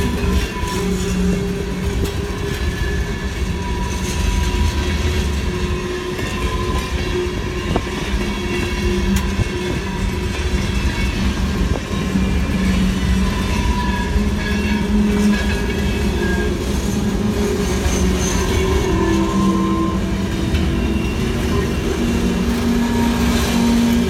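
Freight cars of a passing train rolling by, steel wheels rumbling and clattering over the rails. Short whining tones come and go throughout.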